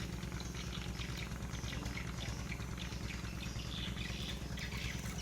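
Faint scattered bird chirps over a steady low rumble.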